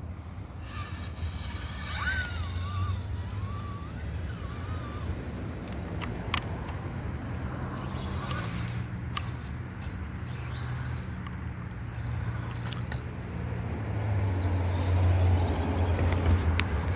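FMS Smasher V2 RC monster truck driving under its electric motor, with a wavering motor and gear whine a couple of seconds in, hissy patches from the tyres and drivetrain, and a few sharp clicks. Its rear differential is locked.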